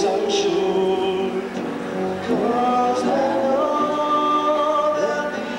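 A young man's voice singing into a handheld microphone over backing music, holding long, drawn-out notes that slide from one pitch to the next.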